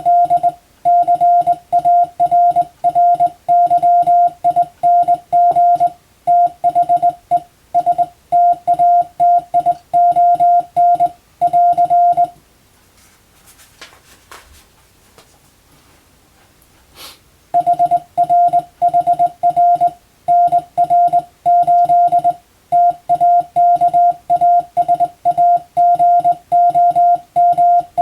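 Morse code (CW) practice: a steady tone of about 700 Hz keyed on and off in dots and dashes, sending English telegram text. The sending stops for about five seconds near the middle, with a couple of faint clicks, then resumes.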